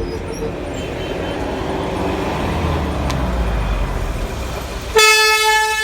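Road traffic running with a steady low rumble, then a vehicle horn blows loudly near the end, one steady note.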